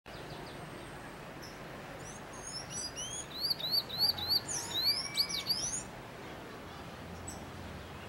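Sayaca tanager singing: a rapid string of high, squeaky upslurred notes, starting about two seconds in and stopping about six seconds in.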